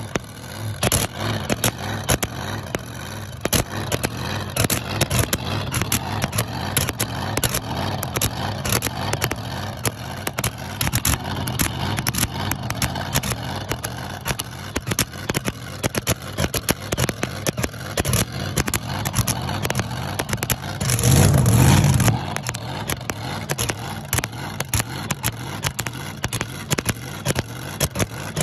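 The supercharged Hemi V8 of a mini rod pulling tractor is warming up, idling with a rough, uneven run of sharp pops over a low rumble. The engine is revved once briefly about 21 seconds in.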